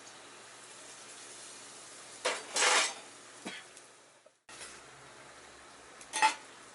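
Food sizzling in a forged-iron Turk frying pan, with loud scrapes and clinks of a utensil against the pan about two seconds in and again about six seconds in.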